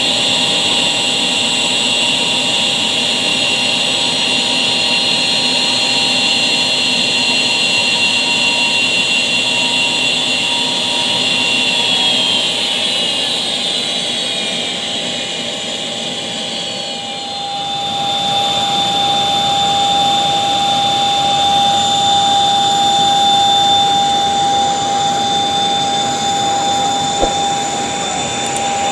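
Small jet aircraft's engines whining as it taxis in, a steady high-pitched whine over a hiss of rushing air. Some of the high tones slide down partway through.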